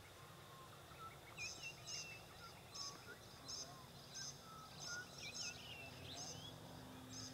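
Faint birds chirping: short high chirps repeating every half second or so, mixed with small gliding whistles. A faint steady hum comes in about halfway.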